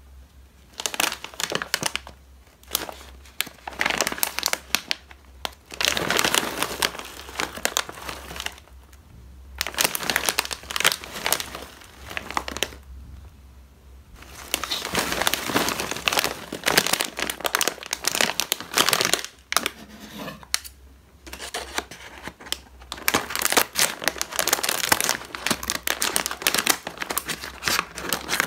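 Plastic snack bag of caramel popcorn crinkling and crackling as hands handle and turn it over, in irregular bursts with short pauses. Near the end, scissors begin cutting the bag open.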